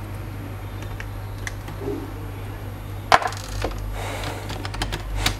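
Handling clicks of a laptop's plastic cooling fan being picked up and fitted onto its heatsink: a sharp click about three seconds in, then a run of quick light clicks near the end, over a steady low hum.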